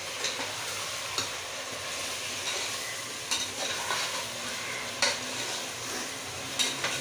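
Chicken pieces sizzling as they fry in oil in an aluminium pressure cooker, browned on their own before the spices go in. A metal spoon stirs them and knocks against the pot about five times.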